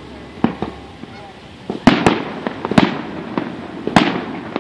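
Aerial fireworks shells bursting at a distance: a series of sharp bangs, each with a short rumbling echo, the loudest about two and four seconds in.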